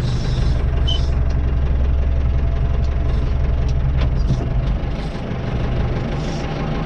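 Tractor engine running steadily at low revs; its lowest note drops away about four seconds in, with a few light clicks.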